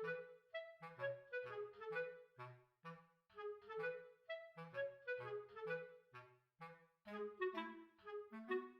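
Background music: a light tune of short, bouncy woodwind notes, about two to three a second, over a plucked bass line.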